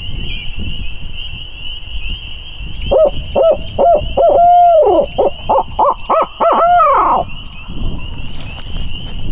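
Barred owl locator call blown on a wooden tube hooter: a run of hooting notes, one held longer in the middle, ending in a drawn-out falling note. It is a turkey hunter's call, meant to shock a roosted gobbler into gobbling.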